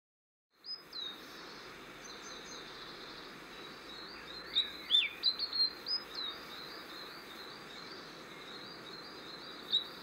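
Black robin singing: a run of short, clear, high notes, a few of them gliding downward, over a steady background hiss. The loudest notes come about halfway through and again near the end.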